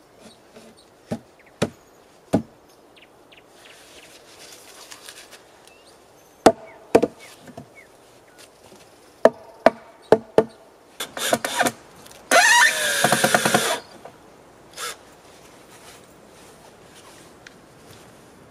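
Wooden knocks as logs are shifted and set into place in a log wall: a few hollow thuds early on, then a quicker run of knocks. Near the middle comes a short rattle, then the loudest sound: a dense rattling burst lasting about a second and a half.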